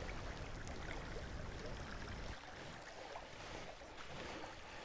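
Faint, steady rush of a small river's flowing water, with a low rumble that fades out a little past two seconds in.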